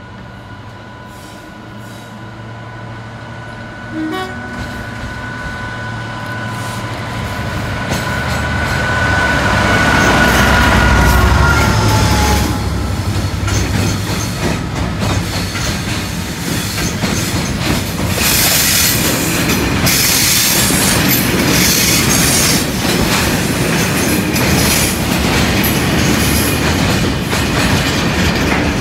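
Pair of Freightliner Class 66 diesel locomotives running past, their two-stroke V12 engines rising to a loud low rumble about ten seconds in, with a steady high two-note whine that drops in pitch as they go by. From about eighteen seconds, loaded hopper wagons roll past with a dense rattle and clatter of wheels over rail joints.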